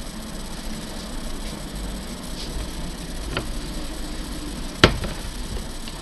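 Steady background hiss, with a faint tap about three and a half seconds in and one sharp click or knock of a hard object near five seconds.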